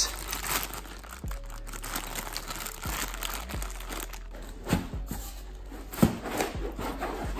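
Clear plastic bag of metal hose clamps crinkling as it is handled, with a couple of louder handling knocks in the second half as parts are lifted from the foam packaging.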